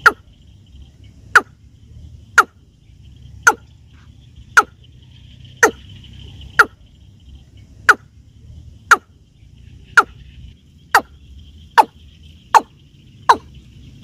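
Watercock calling: a regular string of short, sharp 'keb' notes, each dropping in pitch, about one a second and coming a little faster near the end, over a faint steady high hiss.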